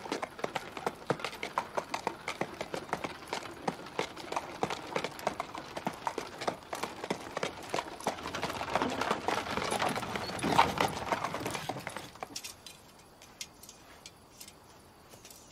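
Hooves of a pair of horses clip-clopping on a dirt road as a horse-drawn cart approaches. The sound swells as it draws close, loudest about ten seconds in, then drops away to a few faint clicks near the end.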